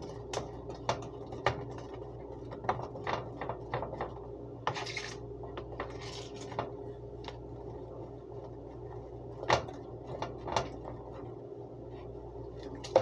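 Kitchen handling of a small plastic container: a string of light clicks and taps, the loudest about halfway through, with a couple of brief rustles, over a steady low hum.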